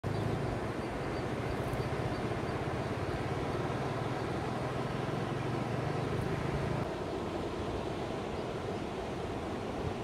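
Steady rushing of a river in flood pouring over rocks. A low steady hum runs underneath and stops abruptly about seven seconds in.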